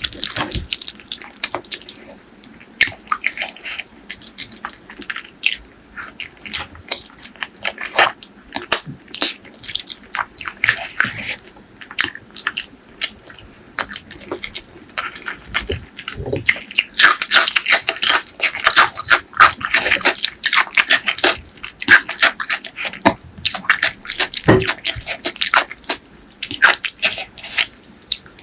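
Close-miked wet chewing and lip smacking of spicy pork leg curry with rice, a steady run of sticky clicks and smacks that grows denser and louder for a few seconds a little past the middle.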